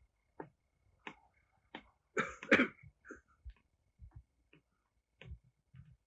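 A person coughing twice in quick succession about two seconds in, among scattered faint clicks and taps.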